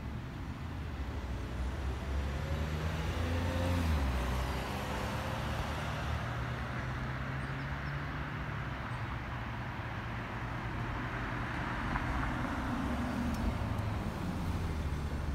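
Cars passing on a street: one goes by with its engine pitch dropping about four seconds in, and another passes with tyre hiss near twelve seconds, over steady traffic noise.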